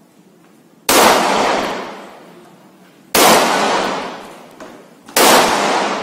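Three 9mm pistol shots from a CZ Shadow 2, about two seconds apart, each echoing and dying away over about a second.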